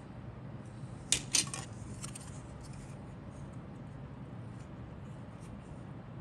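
Hard plastic model-kit parts handled between the fingers: two sharp plastic clicks about a second in, then a few lighter ticks, over a steady low hum.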